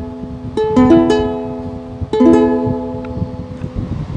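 Ukulele strumming an F major chord: two groups of three quick strums about a second and a half apart, each left to ring.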